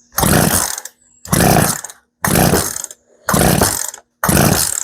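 Poulan P3314 two-stroke chainsaw engine sounding in five short bursts, about one a second, with quiet gaps between them. The saw will not yet hold an idle and is thought to need carburettor adjustment.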